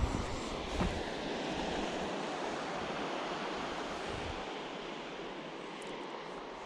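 Steady rush of surf and wind, with gusts buffeting the microphone in the first second.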